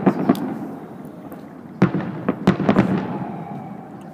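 Aerial fireworks bursting in the distance: a run of bangs and pops, with a strong report a little under two seconds in and several more quickly after.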